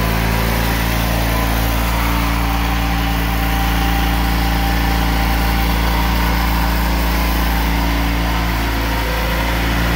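Ford GT95 lawn tractor's engine running steadily as the tractor drives slowly around.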